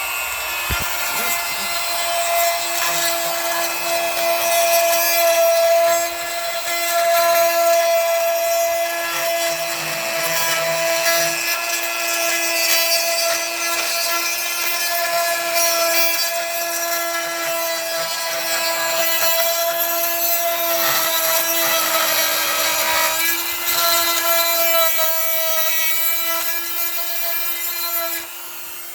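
Dremel rotary tool with a carbide bit running at high speed while grinding out old shower grout: a steady, high motor whine over gritty scraping. It drops away near the end.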